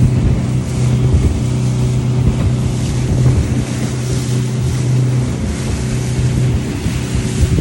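A fishing boat's engine running steadily under way with a constant low hum, along with wind on the microphone and the rush of water.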